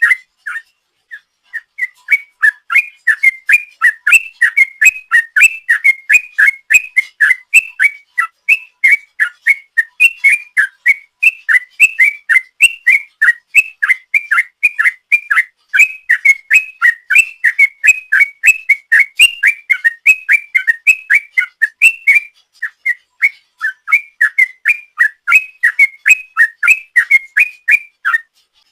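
Yellow-vented bulbul (trucuk) singing a long, fast run of loud whistled notes, about five a second: the 'ropel' rolling song prized by bird keepers. The run breaks off briefly near the start and again about twenty-two seconds in.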